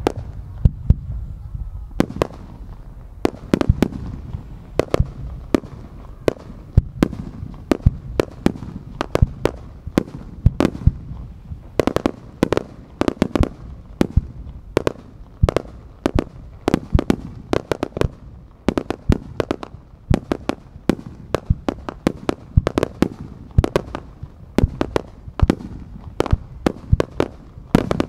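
Fireworks display: a rapid, irregular run of sharp bangs and cracks from aerial shells bursting and low-level mines firing, several a second at times, over a continuous low rumble.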